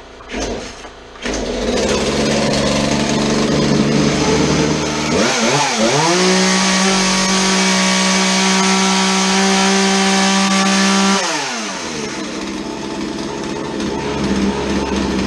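Two-stroke chainsaw running after a carburettor adjustment, now idling steadily; after a few knocks in the first second it idles, is revved up about five seconds in and held high for some five seconds, then drops back to a steady idle, which shows the idle fault is cured.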